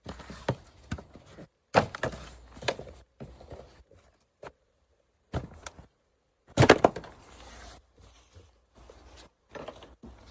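Irregular knocks, clicks and clatter of hand tools and plastic engine-bay parts being handled while the air filter box is taken apart, with two louder knocks about two and seven seconds in.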